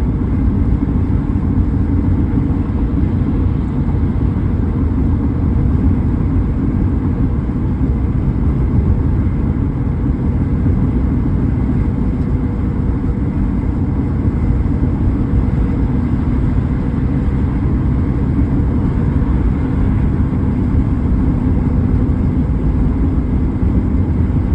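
A car being driven at a steady pace, a steady low rumble of engine and tyre noise.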